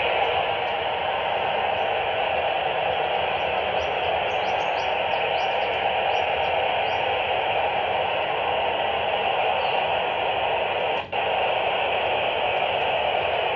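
Handheld FM transceiver's speaker giving out a steady hiss of receiver static, tuned to the AO-91 amateur satellite with no voice coming through. The hiss cuts out for an instant about eleven seconds in.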